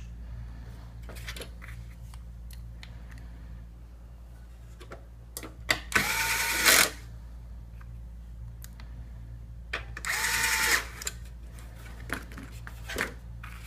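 Electric screwdriver running in two short bursts about four seconds apart as it drives screws, its whine rising and then holding steady each time. Light clicks of small parts being handled come between the bursts.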